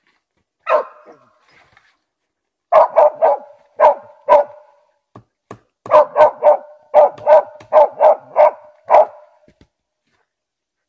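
A Russian-European Laika barking at a raccoon dog holed up in a brush pile, baying the game it has found. A single bark, then short volleys, then a quicker run of about nine barks, falling silent near the end.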